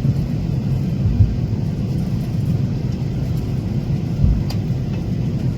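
Steady low rumble inside an airliner cabin as the plane taxis after landing, with one faint click a little after four seconds in.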